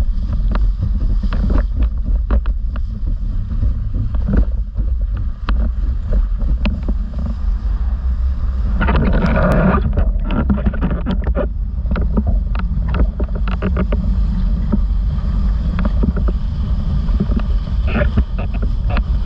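Wind buffeting a rig-mounted action camera's microphone as a windsurf board planes fast over chop, a heavy low rumble broken by many sharp slaps and splashes of water against the board. A louder rush of spray comes about nine seconds in.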